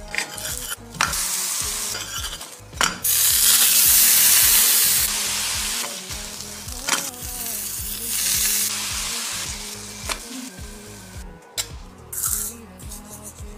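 A slice of bread sizzling as it fries in butter in a hot pan. The sizzle is loudest for a couple of seconds about three seconds in. A few sharp clicks come from the metal spatula against the pan.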